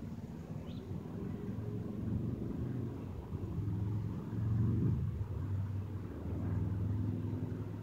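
A distant engine droning low and unevenly, swelling to its loudest about halfway through and then easing off; a short high chirp comes near the start.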